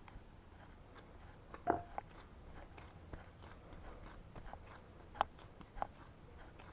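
Hands kneading and squeezing a stiff, elastic ground-oatmeal dough: faint squishing and crackling, with a few sharp clicks, the loudest about a second and a half in and again near five seconds.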